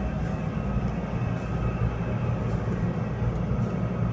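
Steady low mechanical rumble of background machinery, with a faint steady whine above it.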